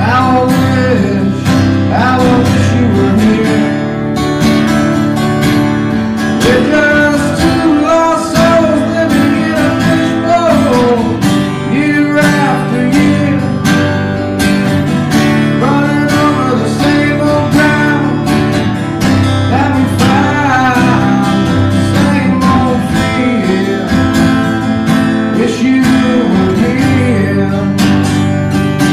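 Acoustic guitar played live, with strummed chords and a picked melody line running over them.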